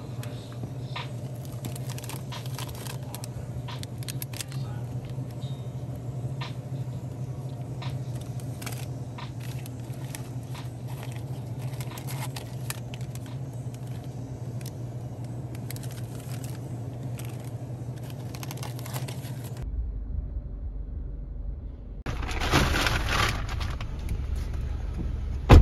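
Paper ice cream sandwich packages crinkling and tapping as a hand sorts through them in a freezer case, over a steady low hum. After a cut comes a low rumble inside a car, a loud burst of rustling as someone comes in at the door, and a sharp thump near the end.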